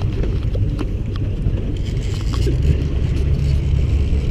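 Steady low rumble of a boat running on the river, with wind buffeting the microphone and a few faint ticks.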